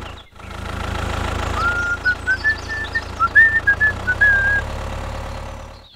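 A steady low engine-like hum, with a short run of whistled notes climbing step by step in pitch through the middle.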